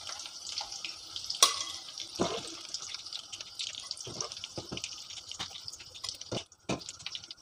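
Hot oil sizzling in a kadai as fried ivy gourd slices are scooped out with a slotted metal ladle, with about eight sharp clinks and scrapes of the ladle against the pan and plate.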